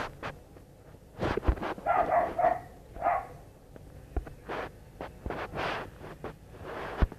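Short animal calls, a quick run of them about two seconds in and another about a second later, among scattered sharp knocks and clicks.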